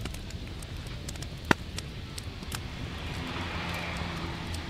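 Open wood fire crackling with scattered small pops and one sharp crack about a second and a half in, over a low rumble of wind on the microphone. A soft hiss rises near the end.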